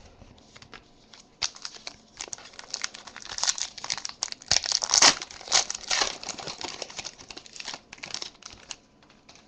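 A foil trading-card pack wrapper crinkling and tearing as it is opened, a dense run of sharp crackles that is loudest in the middle and stops shortly before the end.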